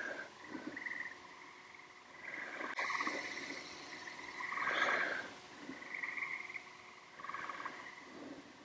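Frogs calling: short pulsed trills repeated every second or two, several overlapping at slightly different pitches.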